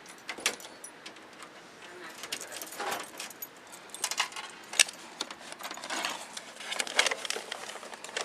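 Metallic jangling and irregular sharp clicks mixed with rustling, as of keys and small metal gear being handled; the sharpest clicks come about five and seven seconds in.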